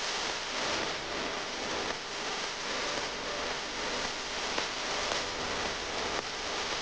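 Steady hiss of background noise, with light rustling from a coiled USB charging cable being turned over in its paper sleeve.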